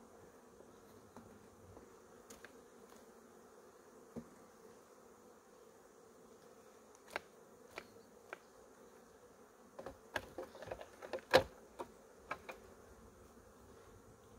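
Honeybees buzzing around an open hive with a steady hum. Beehive frames are handled over it, making sharp knocks and clicks that bunch up near the end, the loudest about eleven seconds in.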